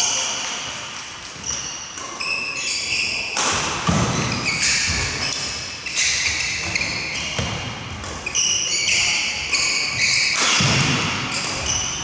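Badminton play echoing in a sports hall: sneakers squeaking in short high chirps on the wooden court floor, with racket hits on the shuttlecock and thuds of footsteps.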